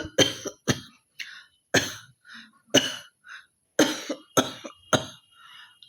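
A woman coughing hard and hawking, a string of about eight short harsh coughs, about one a second at first and quicker near the end. She has a real cough.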